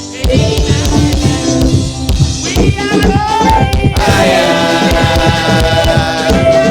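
Live gospel music: voices singing a lively song over a steady drum beat.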